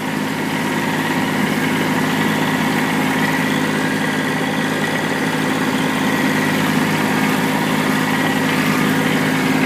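Kubota tractor's diesel engine running with a steady hum.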